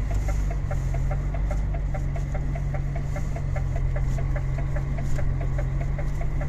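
DAF XF95 truck's six-cylinder diesel engine pulling steadily at low revs, held back by the traction control as the drive wheels slip. A rapid light ticking, about five ticks a second, runs over it.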